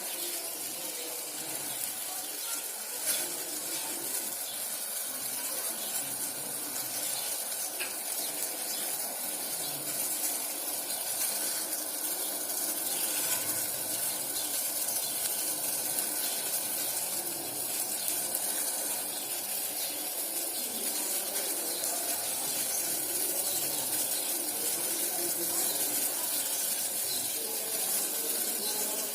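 Steady hiss with water noise from a pan of herbal decoction (kadha) heating and simmering on a stove.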